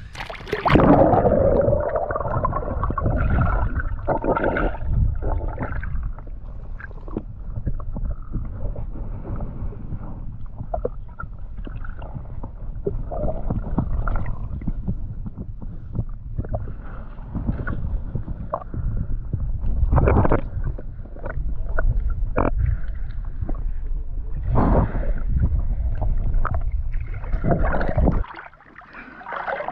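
Muffled water sloshing and gurgling with a low rumble, heard through a camera held underwater, broken by a few sharper knocks in the second half; it cuts off sharply near the end.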